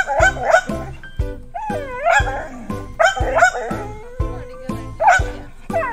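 A Labrador retriever gives several short, wavering whines and yips while begging for papaya fruit out of its reach. Background music with a steady beat of about two beats a second runs underneath.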